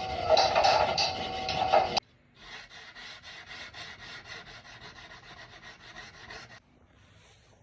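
Hand filing or sanding on a handmade knife, rubbing back and forth. A loud, dense stretch cuts off sharply about two seconds in, then quieter, even strokes follow at about four a second and stop suddenly near the end.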